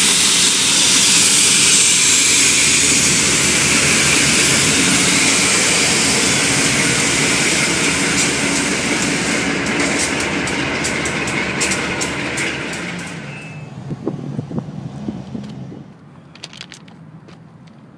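Ferromex freight train passing close by: the GE ES44AC diesel locomotives running loud, then hopper cars rolling past with a quick run of wheel clicks. About thirteen seconds in the train noise fades away, leaving only faint sounds.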